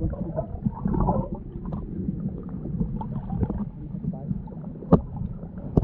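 Muffled water sloshing and gurgling picked up by a GoPro under the water, with a sharp knock about five seconds in.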